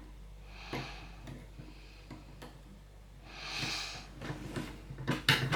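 Picking an Anchor Las disc-detainer padlock: faint small clicks of the pick and discs, two audible breaths out through the nose, then a few sharper clicks and knocks of metal near the end.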